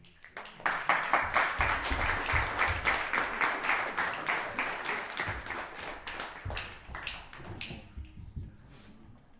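Audience applauding. It starts about half a second in, is loudest over the next few seconds, then thins out and dies away near the end.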